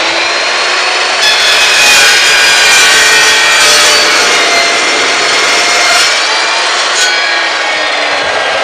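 Evolution Rage2 14-inch multi-purpose chop saw running, its stock carbide-tipped blade cutting through steel angle iron from about a second in until about seven seconds, then spinning free with the head raised.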